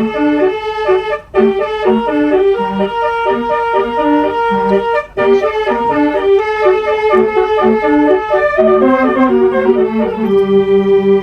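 Bus telolet horn, a multi-tone musical air horn, playing a fast melody of loud reedy notes, with two short breaks about a second and five seconds in and longer held notes near the end.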